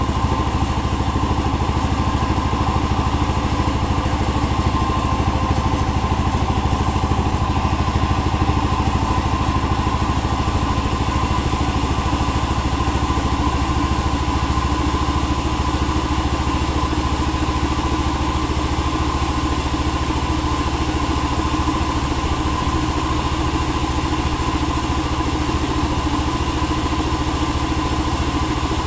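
Engine-driven saw running steadily, its engine note even and unchanging.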